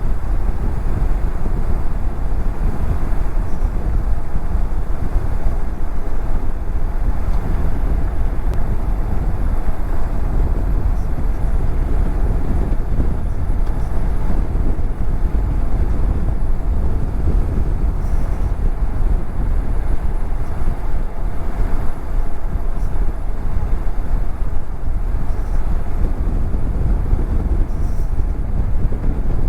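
Steady wind rumble on a helmet-mounted microphone from a BMW F700GS motorcycle cruising at road speed, with its engine running underneath.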